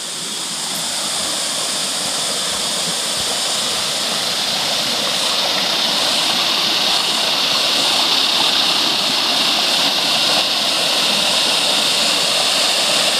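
Creek water rushing over rocks in a small cascade, a steady hiss that grows gradually louder as the listener comes closer.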